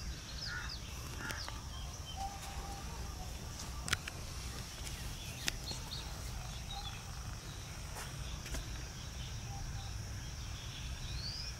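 Outdoor ambience: a steady high insect drone with a few short bird chirps over a low rumble, and two sharp clicks, about four and five and a half seconds in.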